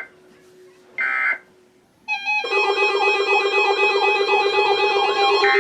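Emergency Alert System end-of-message data bursts: the last of three short, harsh digital bursts about a second in. About two seconds in, a loud steady alarm-like tone begins, made of several held pitches with a warbling tone running through it.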